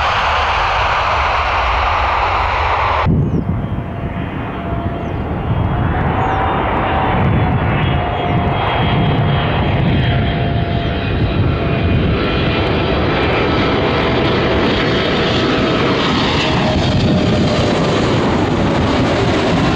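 Jet airliner engine noise. About three seconds in it cuts abruptly to another passing jet: a low rumble with a steady engine whine that slowly falls in pitch as the aircraft passes.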